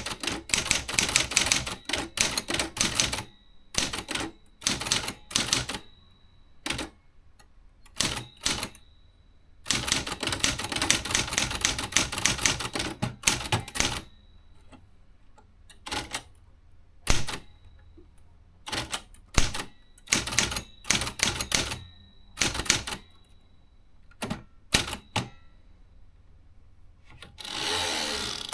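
Remington Quiet-Riter Eleven manual portable typewriter being typed on: fast runs of key strikes broken by pauses, then slower single strokes, with a faint high ring lingering after some of them. Near the end comes a longer, smoother mechanical noise of about a second.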